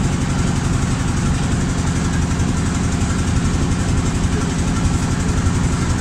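The inboard engine of a small covered passenger boat runs steadily under way, with a low, even hum and no change in speed.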